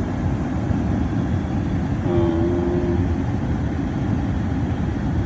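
Comfortmaker gas furnace running: burners firing and inducer motor giving a steady rumble, with a brief hum-like tone about two seconds in. The burners are showing heavy flame rollout, which the owner puts down to a sooted-up heat exchanger.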